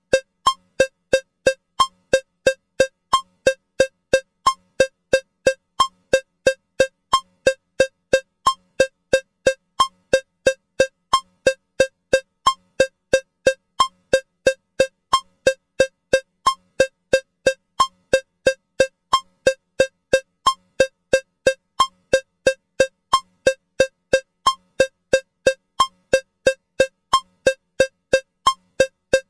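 Metronome cowbell clicking steadily at 180 beats per minute, about three strikes a second, with every fourth strike accented to mark the first beat of each 4/4 bar.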